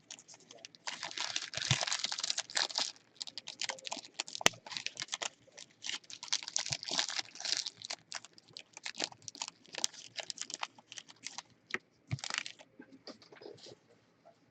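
Crinkling and rustling of hands working at a tabletop, in dense bursts, with scattered sharp clicks.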